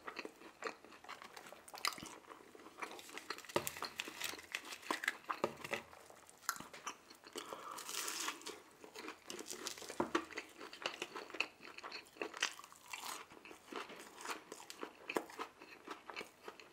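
Mouth sounds of eating McDonald's food: steady chewing with many short wet clicks, and a crisp crunching bite into a chicken McNugget about eight seconds in.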